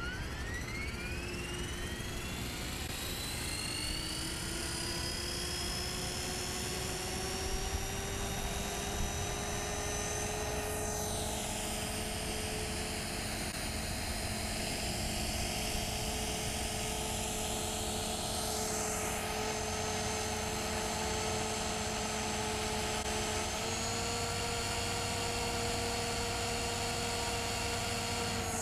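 Electric Blade 450 RC helicopter's motor and rotor: a whine that rises steadily in pitch over the first several seconds as the rotor spools up, then holds a steady whine with rotor buzz while it flies. In the middle the higher whine sweeps down and back up, and near the end the pitch steps up slightly.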